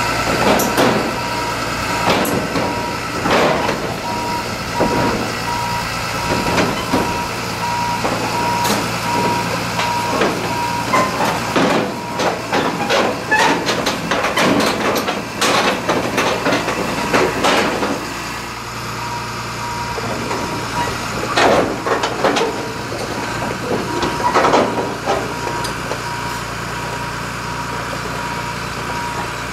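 Bulldozer engine running while its reversing alarm beeps steadily, with repeated loud knocks and bangs. The beeping stops for several seconds in the middle, when the knocks come thickest, then starts again.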